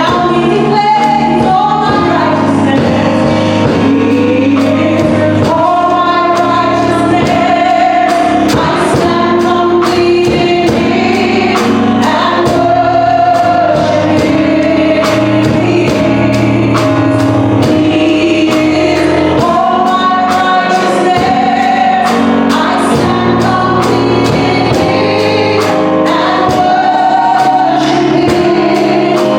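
Gospel worship song: several voices singing together over band accompaniment with a steady beat.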